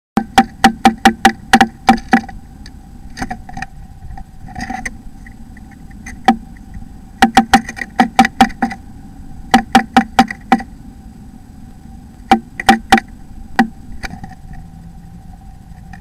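Blue tit tapping and pecking at the wood inside a nest box: sharp knocks in quick runs of several a second, with short pauses between the runs. A steady faint whine sits underneath.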